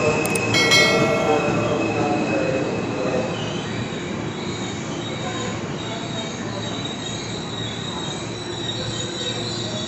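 KRL Commuter Line electric train, an ex-Japanese 205 series set, rolling along the platform with steady running noise and a high-pitched wheel squeal. A short sharp ringing sound about a second in.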